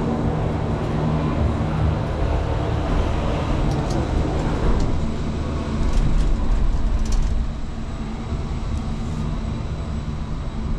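Steady low rumble of a motor vehicle outdoors, growing louder for a couple of seconds about halfway through, then settling back.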